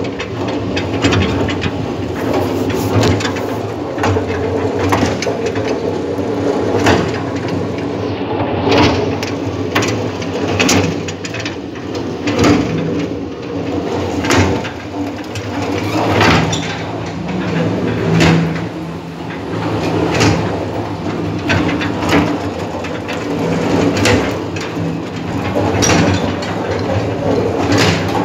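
Building-site noise: an engine running steadily, with frequent irregular knocks and clanks over it.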